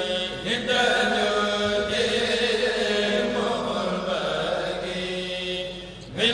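Voice chanting a khassida, an Arabic devotional poem, in long held melodic lines. It fades briefly near the end as one verse gives way to the next.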